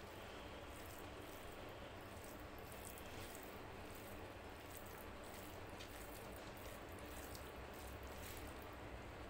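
Faint, irregular wet squishing and sticky clicks of cooked rice being kneaded by hand into mutton curry on a plate, over a steady low background hum.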